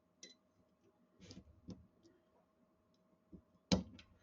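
Small metal clicks and taps of a screwdriver working against a pistol slide while the firing pin is pressed in and its stop fitted, on a Sig P210-6. A few scattered light clicks, with one sharper click about three and a half seconds in.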